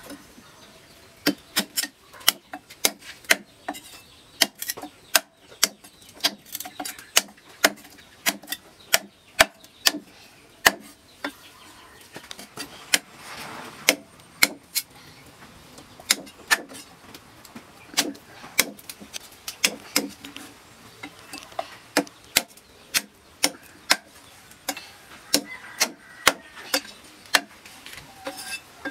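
Meat cleaver chopping pork ribs into chunks on a thick wooden chopping block: a long, irregular run of sharp chops, roughly one or two a second, with a short lull about halfway through.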